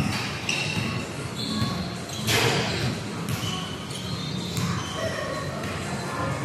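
Basketball game on an indoor court: the ball bouncing, players' shoes and voices in a large echoing hall, with a louder rush of noise about two seconds in.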